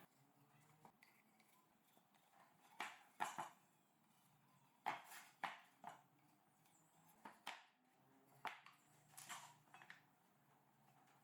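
Scattered sharp knocks and taps, about a dozen at uneven intervals in small clusters, from pine chair parts and hand tools being handled and set down during woodworking.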